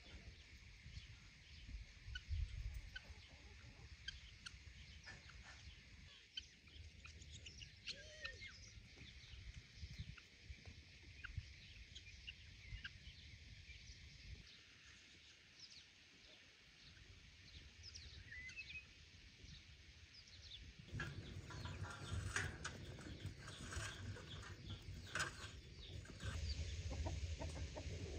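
Chickens clucking in a farmyard, with short high chirps scattered throughout. The sound gets louder about three-quarters of the way in, with scattered clicks.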